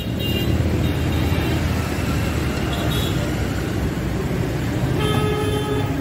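Steady traffic noise from a busy road, with a vehicle horn sounding for about a second near the end.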